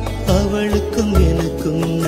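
Background music: an instrumental passage of a Tamil film song, a wavering melody over held low notes with light percussion strokes.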